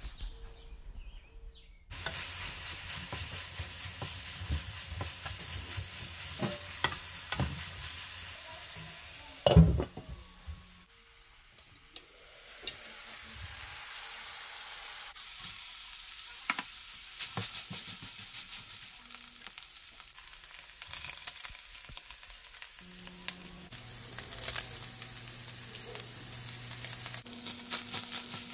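Minced beef frying in a nonstick pan: a steady sizzle that starts about two seconds in, with a wooden spoon stirring and scraping through it. A loud knock near the middle, after which the sizzle drops away for a few seconds and then builds back up.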